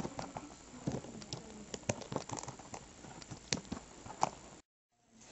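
Scattered light taps and rustles as plastic toy figures are handled and moved across a carpet, with some quiet handling noise on the microphone. The sound cuts out completely for about half a second near the end.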